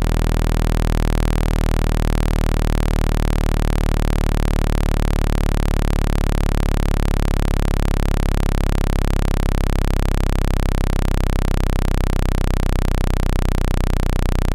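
Speaker-cleaning tone: a loud, steady, very low electronic hum with a buzzing stack of overtones and a fast even pulse, played through a phone speaker to shake out water and dust.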